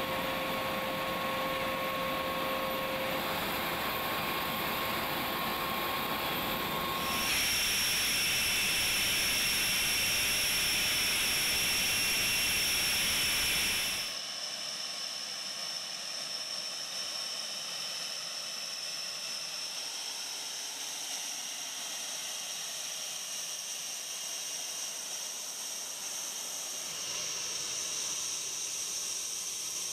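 Panavia Tornado GR4's twin RB199 turbofan engines running on the ground while it taxis: a steady jet hiss with a high whine. The sound grows louder about 7 seconds in, then drops abruptly to a softer hiss about 14 seconds in.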